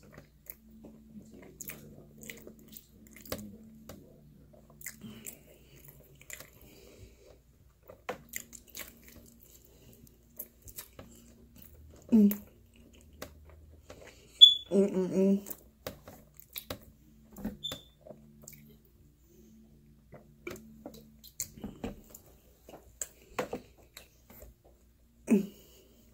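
Close-up chewing and mouth sounds of a person eating pizza, with many small wet clicks. A few short voice sounds break in, the longest about halfway through.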